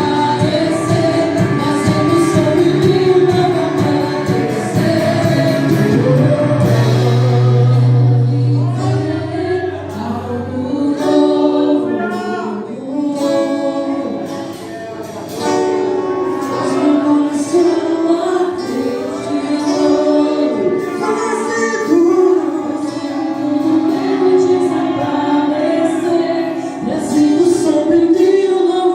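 Gospel worship song sung by a group of voices with women leading, over instrumental backing with low bass notes.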